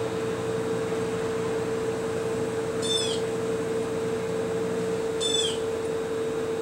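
Steady machine hum with a constant tone. Two short, high-pitched squeaky chirps come about three and five seconds in.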